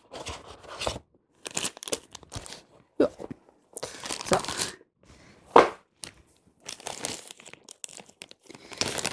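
Plastic packaging rustling and crinkling in short irregular bursts as board game components are unpacked: bags of wooden pieces and the wrapping of a card deck. One sharp, loud crackle comes a little past the middle.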